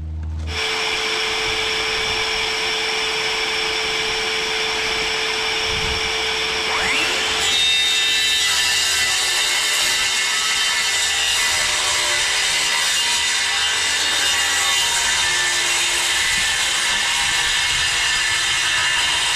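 Electric power saw cutting wood, running steadily, with its pitch shifting about seven seconds in.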